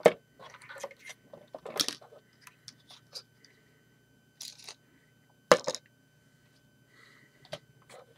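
Plastic LEGO pieces being handled and set down, giving a few sharp clicks and knocks with light rustling between; the loudest knocks come right at the start and about five and a half seconds in.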